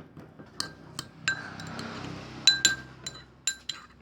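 Stirring utensil clinking repeatedly against the container as thick slime is stirred, each knock followed by a brief ringing.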